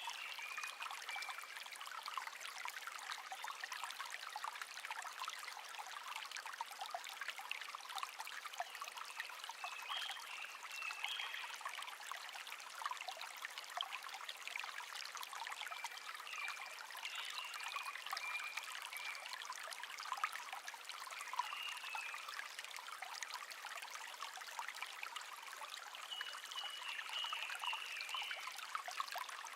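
A small stream babbling and trickling steadily, with a songbird singing short warbled phrases every few seconds over it.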